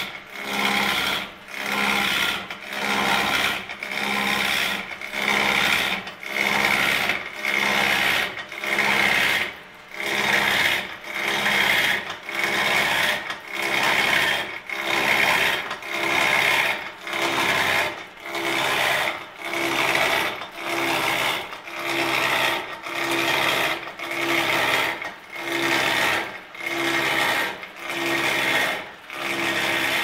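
Wood lathe cutting, a tool biting into the spinning wood in even strokes about once a second, each stroke lasting most of a second with a short dip between.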